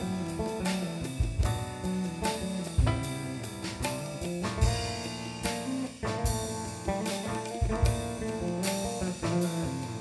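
Live jazz-fusion band playing: drum kit and tabla keeping a steady beat under guitar and other pitched instruments.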